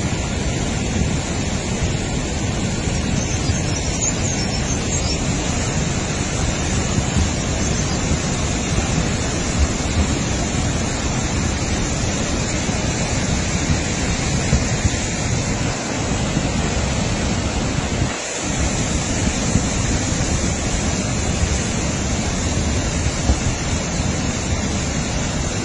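Mountain stream in spate after heavy rain, its muddy floodwater rushing and churning over boulders and rubble in a loud, steady torrent.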